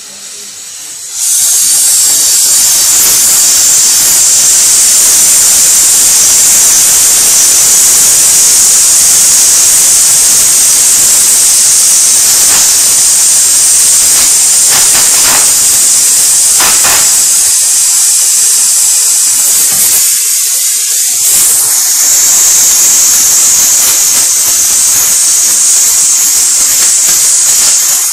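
Gas torch flame hissing loudly and steadily as it melts the lead terminal posts of a lead-acid battery. It starts suddenly about a second in and dips slightly once around two-thirds of the way through.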